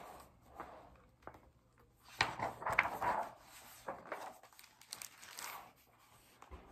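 Hardcover picture book being opened and its pages turned: paper and cover rustling and crinkling in short, irregular bursts, loudest about two to three seconds in.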